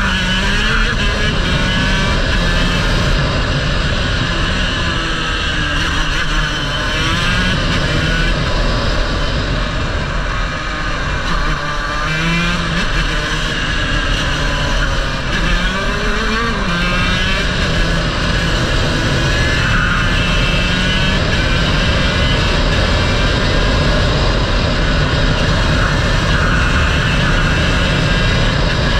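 Racing kart engine at full throttle, its pitch climbing as the kart accelerates and dropping off each time it slows for a corner, over and over. Tyre and wind noise from the moving kart run underneath.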